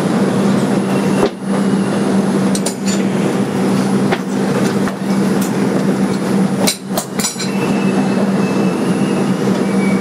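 Steady hum and rumble inside a 2001 Bombardier R-142 subway car, even in pitch, with a few light clicks and clanks.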